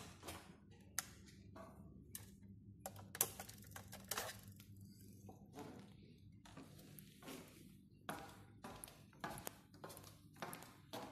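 Scattered sharp clicks and knocks, irregularly spaced, from light switches and a main power switch being flipped on, over a steady low hum.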